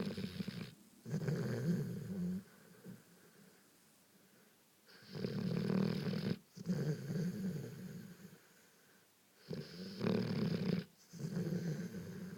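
Golden retriever snoring in deep sleep, with honking snores about every five seconds. Each breath comes in two parts: a louder, hissier snore, then a lower, softer one.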